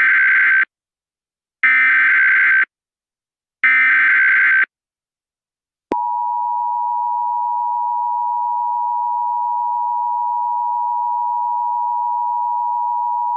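Emergency Alert System SAME header: digital data bursts, each about a second long and sent three times, with a warbling, buzzy screech. It is followed, about six seconds in, by the steady two-tone EAS attention signal.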